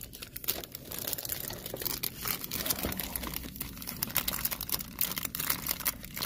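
Plastic snack wrapper of a bag of powdered sugar donuts crinkling with irregular crackles as it is squeezed into a vending machine's spiral coil slot that is too small for it.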